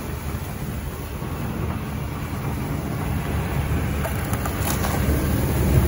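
Diesel engine of a wheel loader running with a low, steady rumble, growing louder as the machine draws closer.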